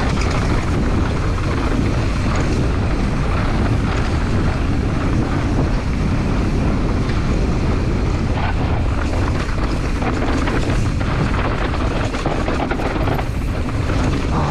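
Wind buffeting the microphone during a fast mountain-bike descent, mixed with the tyres rumbling over dry, rocky dirt. Short clatters of the bike over rocks come through in the second half.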